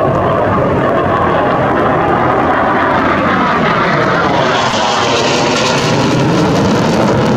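The single RD-93 turbofan engine of a JF-17 Thunder fighter jet, heard as a loud, continuous jet rush as the jet climbs past. The sound sweeps with a phasing quality midway and turns brighter and hissier from about four and a half seconds in.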